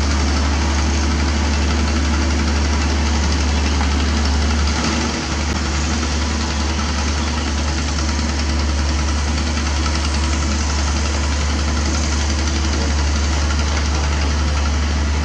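Hydraulic excavator's diesel engine running steadily close by, a deep continuous drone with a slight dip about five seconds in.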